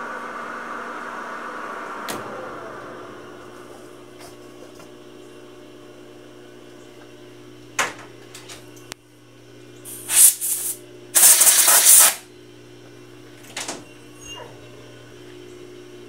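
Emco V13 metal lathe winding down as the spindle is stopped after reaming: its steady running tone fades over the first few seconds, with a click about two seconds in, leaving a low steady hum. A few clicks follow, then two short, loud hisses about ten and eleven seconds in.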